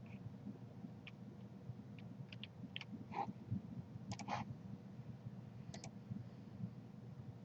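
Computer mouse buttons clicking: scattered single clicks and a few quick double clicks, over a low steady hum.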